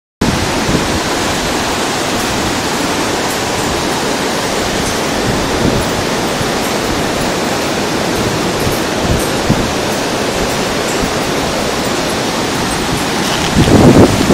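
Steady rush of a fast-flowing river with white water, with a brief louder rumble near the end.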